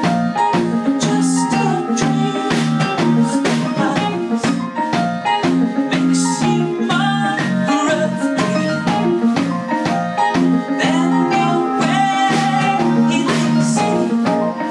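Live indie-pop band playing: electric piano, a marimba-like electronic mallet keyboard, electric guitar and electric bass guitar, in a steady rhythmic groove.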